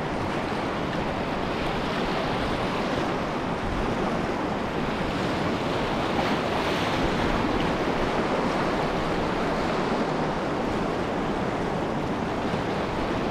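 Whitewater rapids rushing steadily around a canoe, an even roar of moving water.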